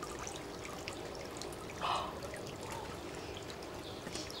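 A thin stream of water trickling from a garden hose spray nozzle into a paddling pool, steady, with a short louder sound about two seconds in.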